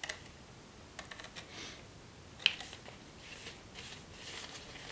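A pleated strip of stiff brown paper being unfolded by hand: soft rustling and small crackles as the creases open, with one sharp crisp snap of the paper about two and a half seconds in.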